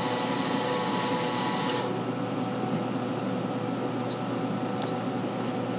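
Branson ultrasonic cleaning tank running its ultrasonics: a loud, steady high hiss that cuts off suddenly about two seconds in, at the end of its programmed 10-second cycle. A quieter, steady machine hum continues after it.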